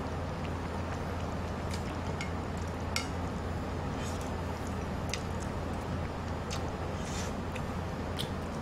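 Eating at close range: soft chewing of stew meat with about seven or eight scattered light clicks of chopsticks and spoons on the dishes, over a steady low hum.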